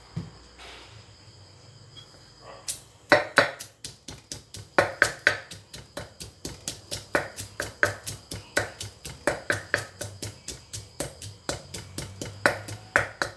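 Wooden pestle pounding in a Thai clay mortar (krok), crushing chilies and garlic for a pounded salad. It begins about three seconds in and goes on as a steady run of sharp knocks, about three a second.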